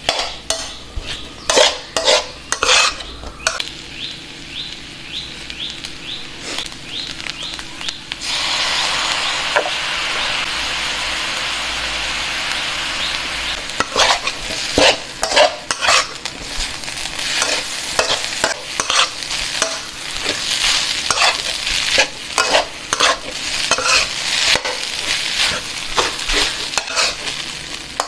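Metal spatula scraping and tossing fried rice in a steel wok: quick repeated scrapes against the pan over frying sizzle. About eight seconds in, a loud steady sizzle takes over for about five seconds, then the rhythmic scraping starts again.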